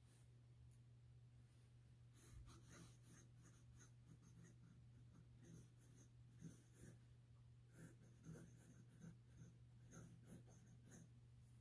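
Faint scratching of a fountain pen nib writing cursive on lined notebook paper, in short irregular strokes that begin about two seconds in, over a low steady hum.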